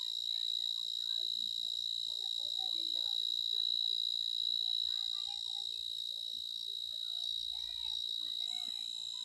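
A steady, high-pitched insect drone, one unbroken tone. Faint, short, scattered chirps sound underneath it.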